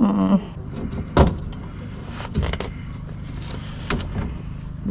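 A few sharp plastic knocks and clicks, about a second in, near the middle and near the end, as an old front lip is worked off its retaining clips.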